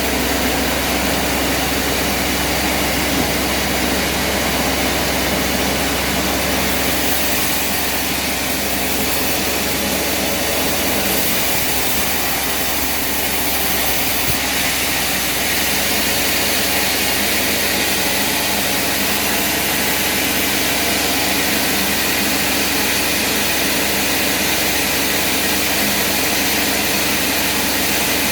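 A machine or engine running steadily, with a constant noisy roar and an underlying hum that does not change.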